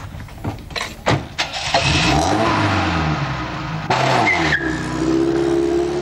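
A car door shuts with a few sharp knocks, then a car engine runs up and revs, its pitch rising and falling as the car pulls away.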